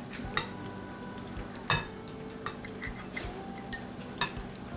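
A serving spoon clinking against a glass bowl and small glass dessert cups as a dessert is spooned out: a string of short, sharp clinks, the loudest a little under two seconds in.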